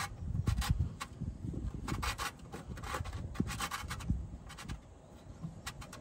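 Oil drain plug with its screen being fitted and threaded by hand back into a tractor's oil pan: irregular metal rubbing and light scraping clicks.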